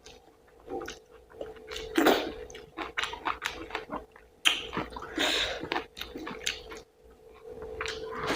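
Close-up chewing of a mouthful of rice and curry: irregular wet smacks and clicks, with louder bites about two seconds in and again around five seconds in. A faint steady hum runs underneath.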